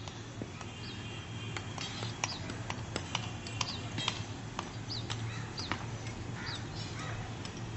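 Sharp, irregular knocks and clinks of bricks being struck and handled in a heap of demolition rubble, several a second. Short high chirps of birds sound between them over a low steady hum.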